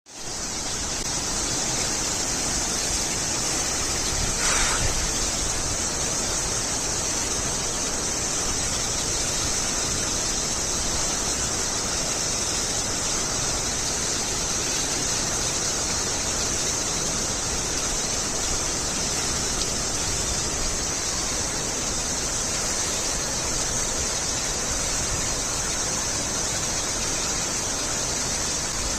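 Jogini waterfall's water falling with a steady, unbroken rushing hiss. It swells briefly louder about four and a half seconds in.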